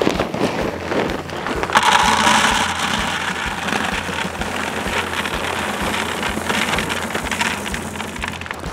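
Pecan-blend hardwood pellets pouring from a plastic bag into an empty plastic bucket: a dense, steady rattle of pellets hitting the plastic. It starts about two seconds in, after some rustling of the bag.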